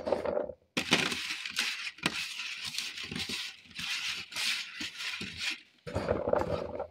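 Small fingerling potatoes clattering and sliding on a metal sheet pan as a hand tosses them in oil and seasoning, with a quiet gap just before the clatter starts about a second in.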